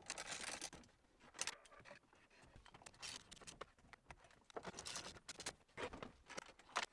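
Hand ratchet with a 7mm socket backing out the screws that hold the factory display: faint, irregular clicks and short scrapes of metal tool on screws and dash trim.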